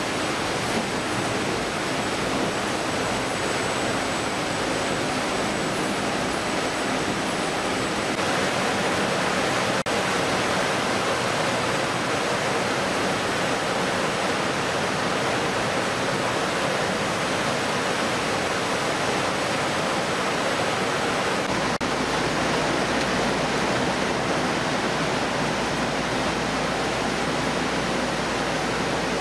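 Steady, loud rushing noise of an on-board fish processing line: machinery running and water flowing through the fish channels and conveyors. The noise shifts slightly a few times but never stops.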